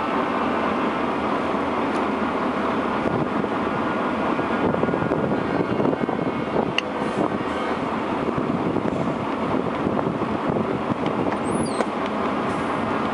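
Truck engine running steadily at low speed in slow queuing traffic, heard from inside the cab together with road noise.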